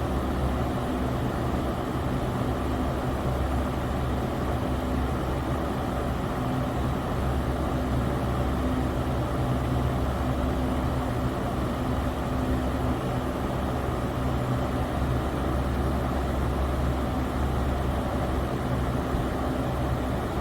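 Electric fan running steadily: a constant whoosh of moving air over a low motor hum.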